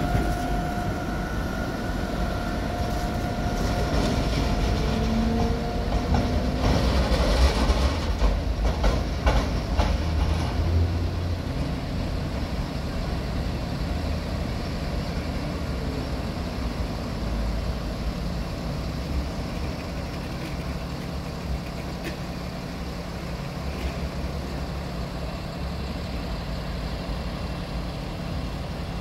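A tram passing close on street track: a steady whine at first, then its wheels clatter over the rail joints and points for several seconds. After that comes the steady low rumble of street traffic, with a city bus running past.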